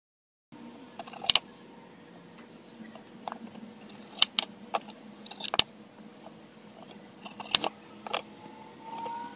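A kitchen knife cutting ripe star fruit over a tray to free the seeds: sharp irregular clicks and taps from the blade and fruit against the tray, about eight of them, over a low steady hum. It starts after a half-second gap of dead silence.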